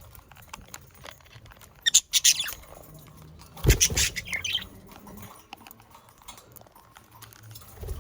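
Budgerigars squawking and chattering in two short loud outbursts, one about two seconds in and another a little before the middle, with quieter stretches between.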